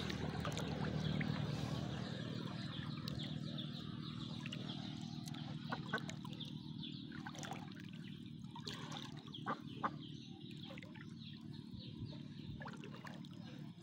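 Domestic ducks swimming in shallow floodwater: faint lapping and dabbling of water with scattered small ticks and splashes, and two sharper clicks a little past the middle.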